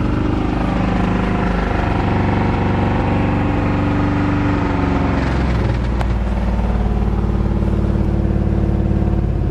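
1987 Chevrolet pickup engine, freshly started after sitting, running fast with the throttle held open; about halfway through the revs settle lower toward idle. It runs rough, which the owner takes for a misfire, and a single sharp click sounds about six seconds in.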